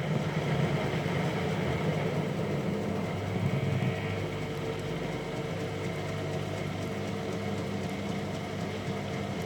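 Hotpoint washing machine running mid-cycle: a steady motor hum from the turning drum.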